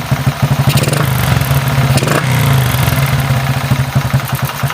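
Kawasaki Rouser LS135's single-cylinder four-stroke engine, running on a SUDCO 28mm carburetor, revved up from idle about a second in, held for a second or so, then dropping back to idle. It has a mechanical rattle that the owner puts down to the timing chain and tensioner.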